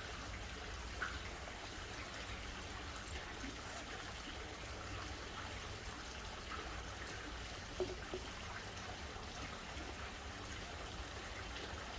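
Steady faint background hiss and low hum, with a few soft faint clicks.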